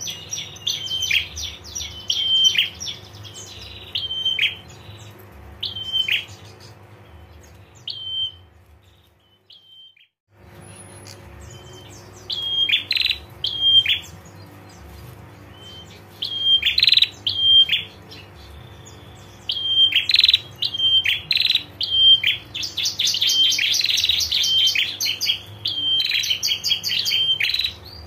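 Caged prenjak songbird calling, with short runs of sharp, high chirps and then a fast, dense chattering trill (the 'ngetir' call) near the end. The sound cuts out completely for about a second roughly a third of the way in. A steady low hum runs underneath.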